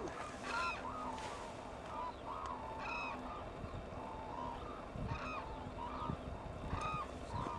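A flock of hooded cranes calling: many short, overlapping honking calls, about two a second.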